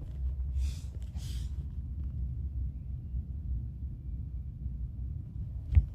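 A low, steady rumble, with two short hissing swishes about half a second and a second in, and a single sharp knock near the end.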